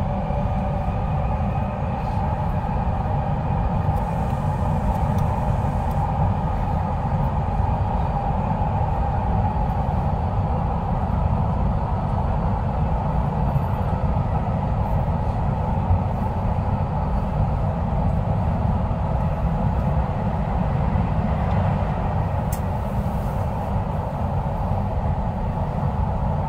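Subway train running steadily through a tunnel, heard from inside the car: a continuous low rumble of wheels on rails with a steady hum above it.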